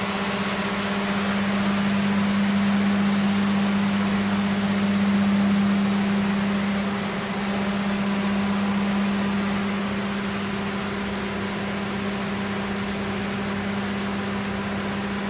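1947 Dodge's flathead straight-six engine running steadily, with a strong, unchanging hum.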